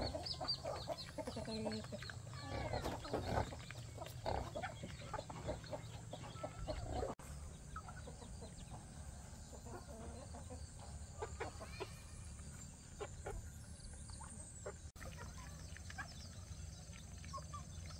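Chickens clucking, with many calls over the first seven seconds and fewer, fainter ones after that, over a low steady hum.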